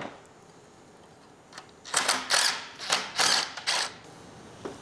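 Cordless impact driver running in several short bursts, backing out the bolt that holds an engine block's ground strap.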